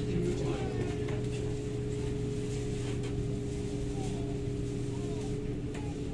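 SMRT C751B train humming steadily at the station platform, a low even drone with a few faint short chirps over it.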